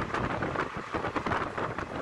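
Passenger train running at speed, heard on board by an open window: a steady rumble of the coach's wheels on the rails with quick rattling clicks, and wind rushing past.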